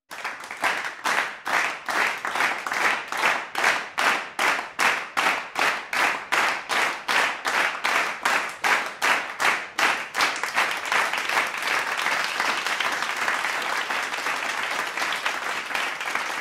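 A large audience clapping in unison, about two and a half claps a second. About ten seconds in, the rhythm breaks up into ordinary, unsynchronised applause.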